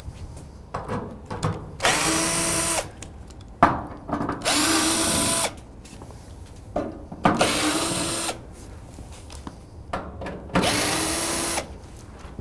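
Cordless drill-driver with a T30 Torx bit backing fasteners out of a steel equipment-cabinet side panel. The motor runs four times, each run about a second long, its pitch rising quickly and then holding, with short clicks and knocks between the runs.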